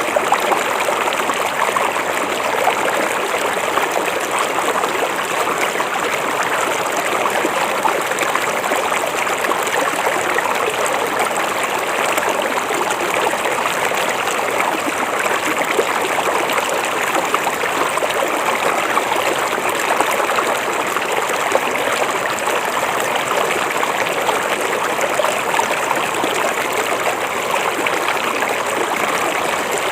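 A river flowing, a steady, unbroken rush of running water.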